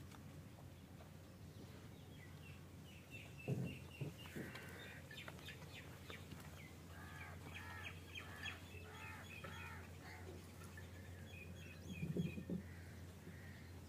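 Birds chirping and calling: quick high chirps throughout, with a run of rising-and-falling calls in the middle, over a faint steady low hum. Two dull thumps stand out, about three and a half seconds in and near the end.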